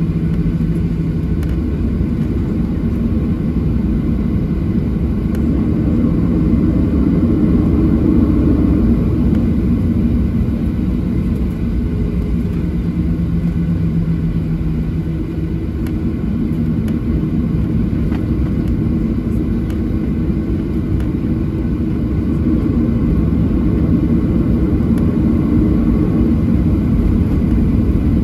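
Steady low rumble and hum inside the cabin of a Boeing 737-800 taxiing, from its CFM56-7B engines at taxi idle and its wheels on the taxiway.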